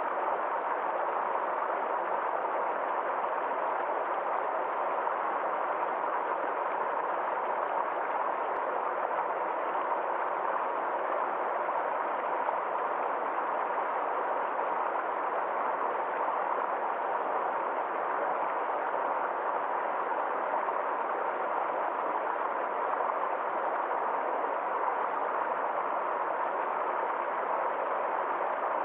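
Small forest stream flowing steadily, a constant even rush of water.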